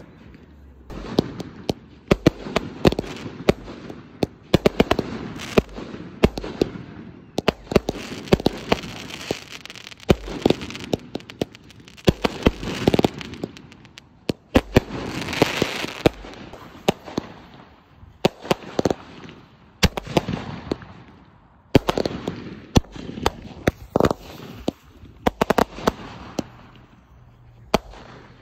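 Aerial fireworks going off one after another: dozens of sharp bangs and pops, with stretches of crackling in between.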